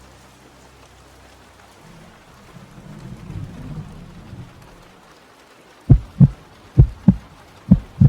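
Steady rain with a low rumble of thunder swelling and fading about three seconds in, then a heartbeat sound effect: three loud, low double thumps (lub-dub) a little under a second apart near the end.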